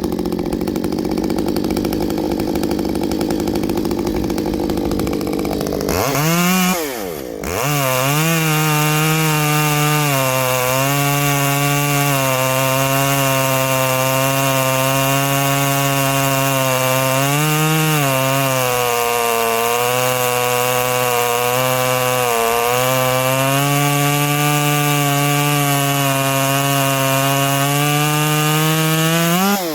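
Ported Stihl MS194T top-handle two-stroke chainsaw running at a low, even speed, then revved up about six seconds in. It is held at high speed for over twenty seconds with a couple of brief dips, and drops back right at the end.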